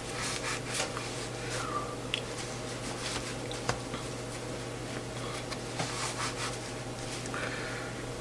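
Soft rustling and brushing of a tweed cap's cloth as it is adjusted on the head by hand, in short scattered strokes with one small click a little before halfway, over a steady low hum.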